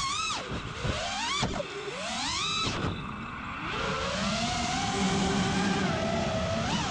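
FPV quadcopter's brushless motors and propellers whining, the pitch swooping up and down with sharp throttle changes for the first few seconds, then holding a steadier, slowly wavering drone. This is a flight the pilot says had a weird noise and vibration, traced to a bad motor.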